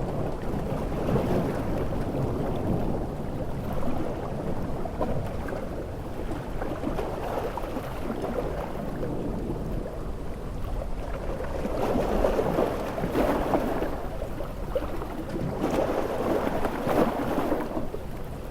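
Large ocean waves washing in with heavy rain, a continuous rushing that swells louder twice in the second half as bigger waves break.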